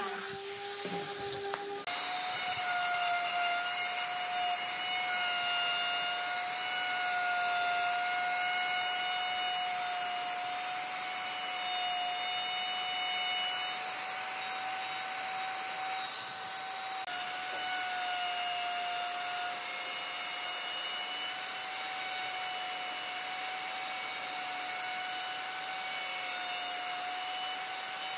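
Electric plunge router running at a steady high-pitched whine while its straight bit cuts a rectangular mortise into a wooden board. In the first two seconds an angle grinder with a sanding disc runs on the board instead, at a lower whine.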